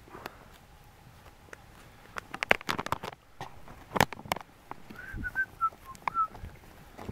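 Plastic dehydrated-meal pouch being torn and pulled open by gloved hands: crinkling and crackling, with the sharpest crackle about four seconds in. A quick run of short whistle-like chirps sounds about five to six seconds in.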